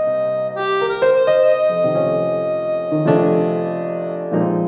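Background music: an electric piano playing slow, sustained chords.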